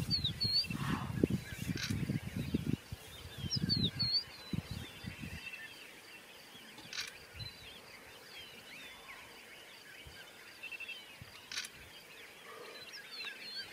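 Open savanna ambience with birds chirping and calling, and faint insect-like ticking. Gusty low rumbling fills roughly the first five seconds, then fades to a quiet background. Three faint sharp clicks are spread through it.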